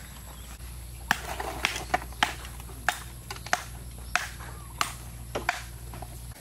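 A series of sharp, irregular knocks as hollow bricks are set down and shifted on a metal sheet to build a fire stand, over a low steady hum.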